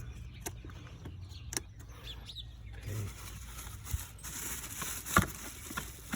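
A few separate light clicks and handling noises as ignition coil wiring connectors are plugged onto the new coils in a BMW 328i's engine bay, over a low steady hum.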